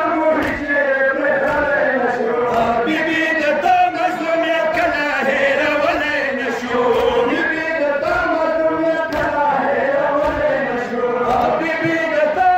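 Men's voices chanting a Pashto nauha, a Shia mourning lament, in long held, wavering notes.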